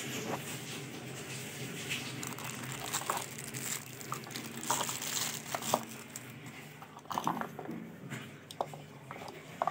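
Plastic packaging crinkling and rustling as a boxed Wi-Fi router and its power adapter, in a clear plastic bag, are handled and unpacked by hand, with scattered light clicks and knocks of cardboard.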